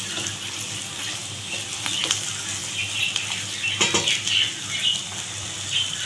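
Sliced onions and green chillies sizzling in hot oil in a steel karahi, frying until half-browned. A wooden spatula stirs and scrapes the pan, with a few sharper strokes about two and four seconds in.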